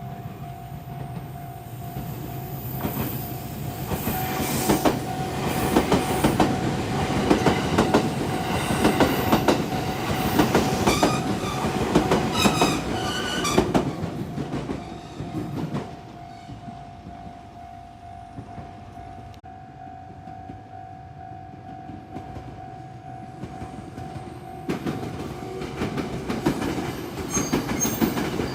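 A Japanese railway level-crossing alarm rings steadily while a train passes over the crossing, its wheels clacking over rail joints with a brief wheel squeal. The train noise dies down about halfway through, and near the end the alarm stops as a heavy train rumble builds again.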